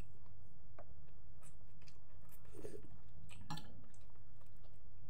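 A person eating boiled noodles with chopsticks: scattered chewing and slurping noises and small clicks, over a steady low hum.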